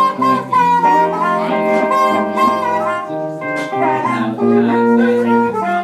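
Live blues band: harmonica playing long held notes that bend and slide in pitch, over electric guitar and electric bass.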